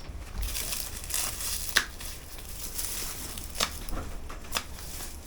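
Rustling and tearing as a still-leafy potato plant is pulled out of its container, with a few sharp cracks.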